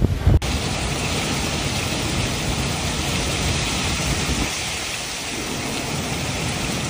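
Heavy rain falling steadily as an even hiss. It cuts in sharply about half a second in, after a brief low rumble.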